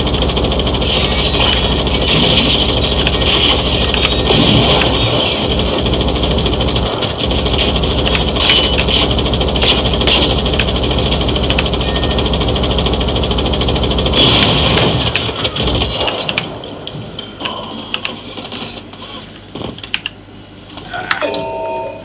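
Video-game gunfire played through speakers: a squad automatic weapon firing long, rapid automatic bursts, which stop about two-thirds of the way in. After that come quieter, scattered game sounds, with a few short tones near the end.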